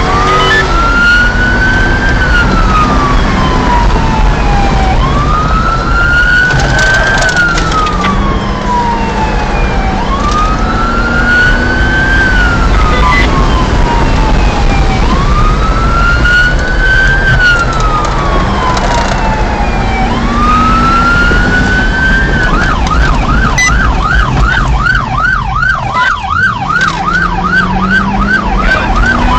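Police car's electronic siren heard from inside the cruiser, on a slow wail that rises and falls about every five seconds, then switching about 23 seconds in to a fast yelp of about three cycles a second. Under it the car's engine revs up in steps as it accelerates, over a steady loud road and wind rumble.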